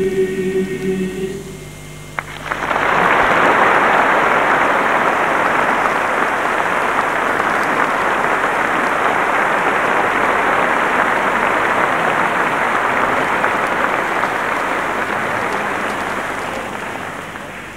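A male choir's closing chord ends about a second and a half in. A concert-hall audience then breaks into sustained applause that dies away near the end.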